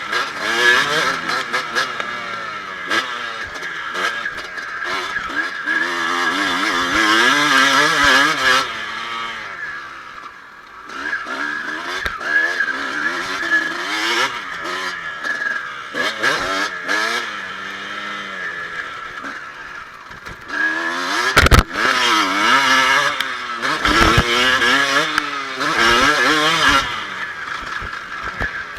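Kawasaki KX250 motocross bike ridden hard, its engine revving up and dropping back again and again as the throttle opens and shuts, with wind rushing over the chest-mounted microphone. A few heavy thumps come about three-quarters of the way through.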